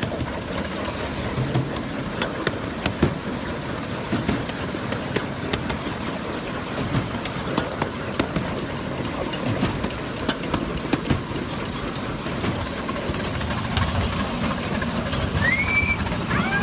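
Miniature railway train running along the track, heard from a seat on the train: a steady rumble with irregular clicks and knocks from the wheels and couplings.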